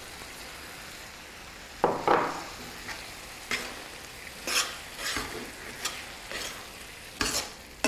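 A steel spoon stirring and scraping thick grated-carrot halwa around a pan, mixing dry fruits into it, over a soft steady sizzle. From about two seconds in come irregular scraping strokes roughly every half second to a second.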